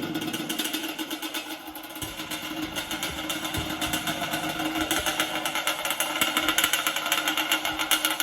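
Yamaha Banshee's twin-cylinder two-stroke engine running steadily with a rapid, even firing rhythm.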